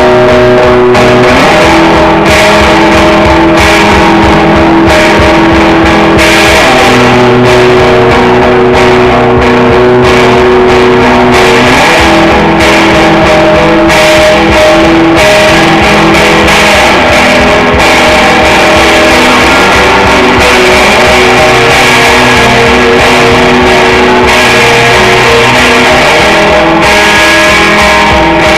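Rock band instrumental: electric guitars playing sustained chords that change every couple of seconds over drums, loud and dense throughout.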